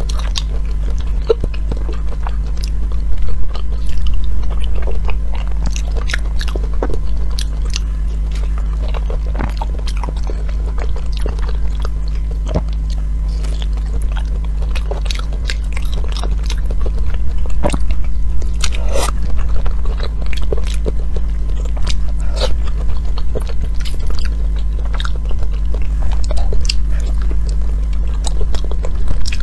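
Close-miked wet chewing and smacking of raw salmon sashimi, with many irregular sharp mouth and lip clicks, over a steady low hum.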